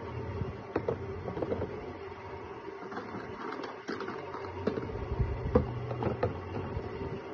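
Small plastic-capped paint jars being set down and shuffled in a clear plastic organizer drawer: scattered light clicks and knocks of plastic on plastic, over a steady low hum.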